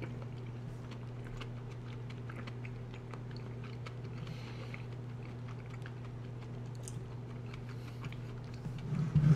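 A person chewing a mouthful of soft stewed chicken and tofu close to the microphone, with small wet mouth clicks, over a steady low hum. A few louder knocks come near the end.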